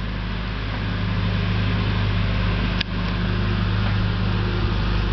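Backhoe loader's diesel engine running steadily, a low even hum, with one sharp click about three seconds in.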